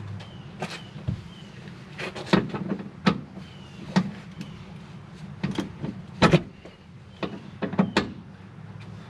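Irregular metallic clicks and clanks of a wrench straining on a very tight, cross-threaded seat belt anchor bolt, over a steady low hum.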